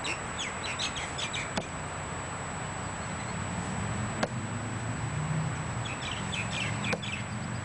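Slow front kicks striking a foam kick pad: three sharp slaps a little over two seconds apart, the middle one the loudest. Birds chirp in short bursts in the background.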